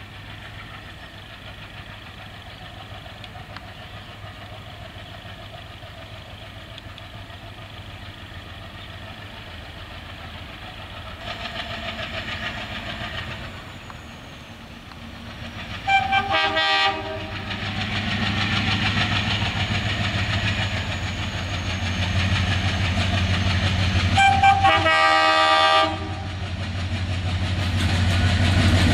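Diesel locomotive drawing a passenger train closer, its engine running with a low drone that grows steadily louder. It sounds its horn twice: a short blast a little past halfway and a longer one of about a second and a half near the end, with wheels clattering on the rails as it nears.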